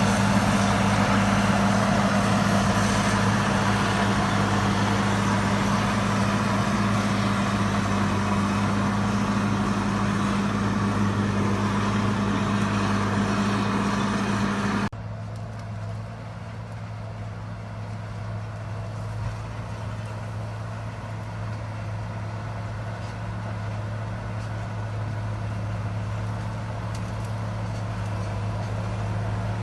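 Caterpillar 140M motor grader's diesel engine running steadily with a deep hum. About halfway through, the sound drops abruptly to a quieter, duller engine sound, which slowly grows louder again.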